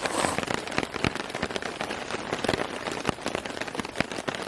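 Rain falling, with many drops ticking irregularly and sharply over a steady hiss.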